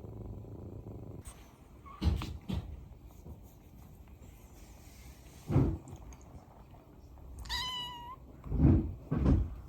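Kittens: a steady low purr for about the first second, then several dull thumps, and one high-pitched kitten mew about three-quarters of the way through.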